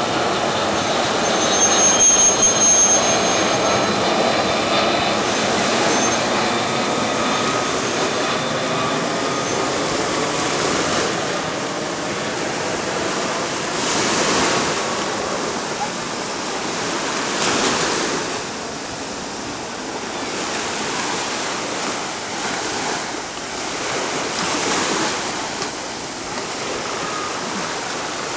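Twin-engine jet airliner on its landing approach passing overhead, a steady engine rush with a thin high whine, loudest two or three seconds in and dying away over the first dozen seconds as it flies off. After that, sea waves break on the shore every few seconds.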